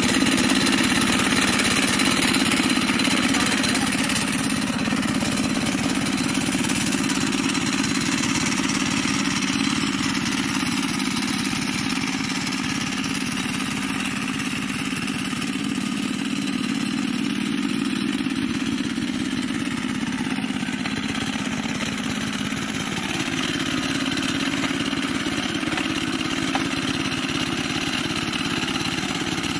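Walk-behind tractor's engine running steadily as it pulls its tiller through a muddy paddy field, with a fast, even chug. It is a little louder in the first few seconds, then slightly fainter as the tractor moves off.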